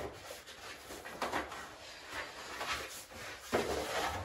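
Pasted lining paper rustling and crinkling as it is handled and pressed up against the wall, in a few short irregular brushes and scrapes.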